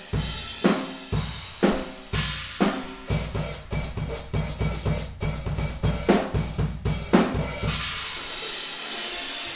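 Drum kit with Owl Dark series cymbals being played: heavy kick-and-cymbal hits about once a second, then about three seconds in a faster groove of around four strokes a second with big accents, ending about eight seconds in on a ringing cymbal wash that lets ring out.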